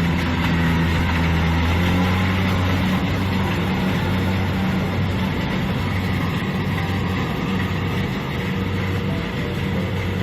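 Kubota DC-70 rice combine harvester running while harvesting, a steady diesel engine drone over machinery noise. The low engine tone weakens a little about three seconds in.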